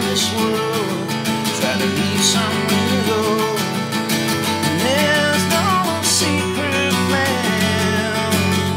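Two acoustic guitars playing together, strummed chords under a melody line that slides between notes.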